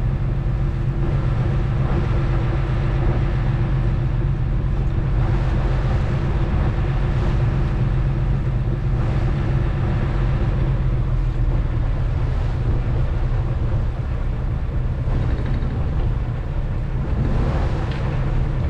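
Small fishing boat's engine running steadily with a constant low hum, with water washing along the hull as the boat moves.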